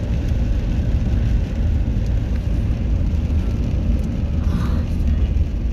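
Steady low road rumble heard inside a moving car's cabin, its tyres running on wet pavement.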